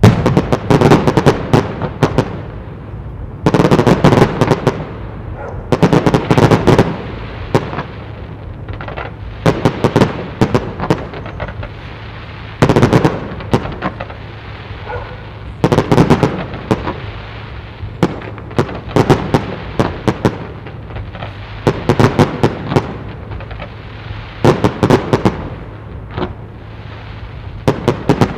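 Aerial firework shells bursting in repeated volleys, each a quick cluster of sharp bangs and crackles, about every two to three seconds.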